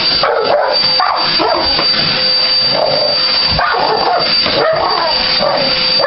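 A pit bull barks and yips at a running upright vacuum cleaner, again and again over the steady whine of the vacuum's motor.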